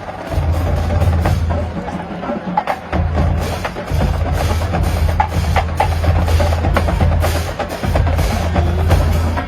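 Marching band playing, with sharp percussion strikes over low sustained bass notes that pause and restart several times.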